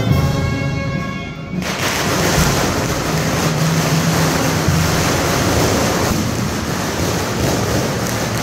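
Brass band music cuts off about one and a half seconds in, giving way to a steady, dense rushing noise.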